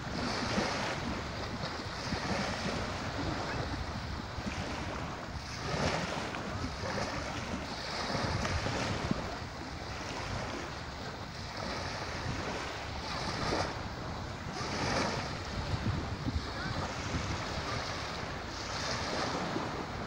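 Small sea waves lapping and washing up onto a sandy shore, swelling and fading every few seconds, with wind rumbling on the microphone.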